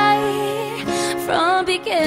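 Background music: a song with held chords, a singing voice coming in over them in the second half.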